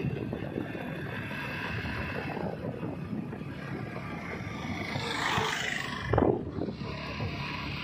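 Steady rumble of travelling in a moving vehicle along a paved road, with wind buffeting the microphone. About five seconds in a louder rushing swell builds and ends in a brief thump.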